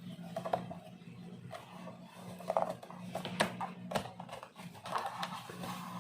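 Plastic parts of a foldable laptop stand being handled and fitted together: scattered clicks and knocks, a few sharper ones in the middle, over a steady low hum.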